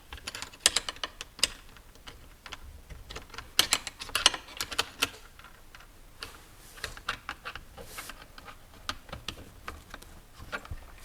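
Irregular clicks and light rattles of small parts being handled and fitted while drive shafts go into an RC car.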